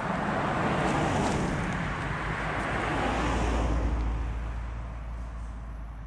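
A Honda sedan driving past on a road, its tyre and engine noise swelling as it approaches and fading as it moves away, with a deep rumble as it goes by.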